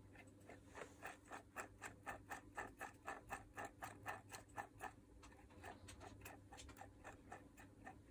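Makita 4329 jigsaw's motor armature and reduction gear turned slowly by hand, clicking softly about three times a second and fading after about five seconds.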